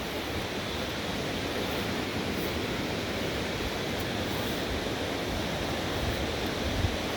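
Steady rushing noise, with a brief low thump near the end.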